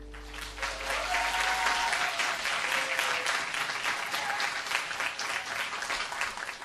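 Audience applauding at the end of a live song, the clapping building quickly about half a second in and then holding steady.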